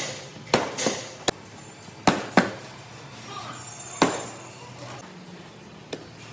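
Hammer blows on car-body sheet metal, about seven sharp irregular strikes, some ringing briefly, as the back panel is beaten out.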